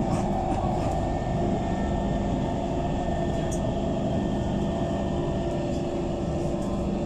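Heavy engines running steadily: a low, even rumble with a constant drone over it.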